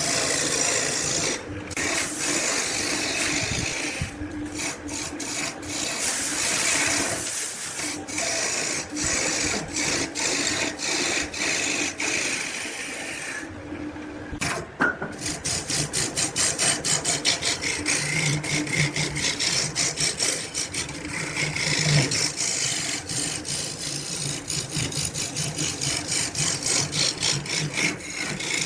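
Wood being shaped with a tool, a continuous rasping and scraping that turns into quick, regular strokes, about four a second, from about halfway.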